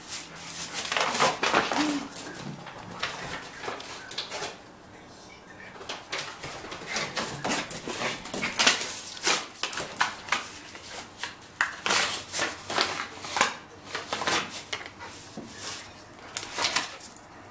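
A small dog shredding paper: irregular crinkling and tearing of paper throughout, with a short pitched sound about two seconds in.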